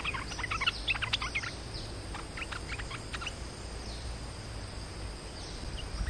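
Small songbirds calling in quick bursts of short, falling chirps, thickest in the first half, over a steady high hum.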